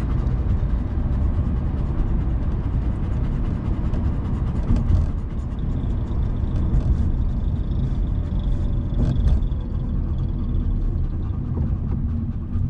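Steady low rumble of road and engine noise inside a moving car's cabin, with a couple of brief knocks about five and nine seconds in.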